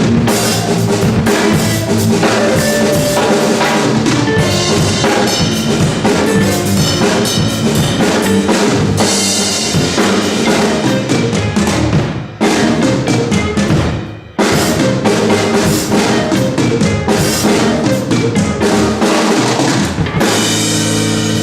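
Funk band of drum kit, bass and guitar playing loudly, the drums busy with bass drum, snare and rimshots over a bass line, with two short stops about twelve and fourteen seconds in. Near the end the drumming stops and a final chord is held and rings.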